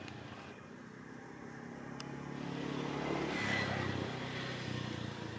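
A motor vehicle's engine passing by: it grows louder, peaks about three seconds in, then drops a little in pitch and fades.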